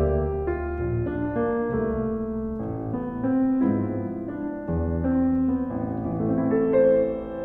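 Instrumental piano music: a melody of single notes over sustained low bass notes.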